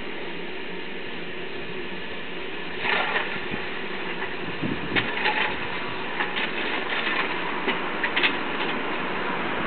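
LNER K1 class steam locomotive 62005 standing with steam hissing steadily, growing louder about three seconds in, with scattered metallic clanks and knocks.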